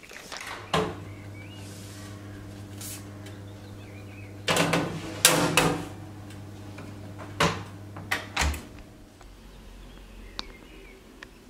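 Wall oven door opened and a baking tray of meringue slid in: several sharp knocks and metal clatters, the loudest in a cluster about halfway through, over a steady low hum that stops after a last knock near the end.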